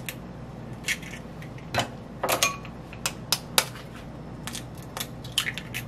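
An egg knocked against the rim of a glass bowl and its shell broken open: a series of sharp taps and clicks, one about two and a half seconds in leaving a brief ring from the glass.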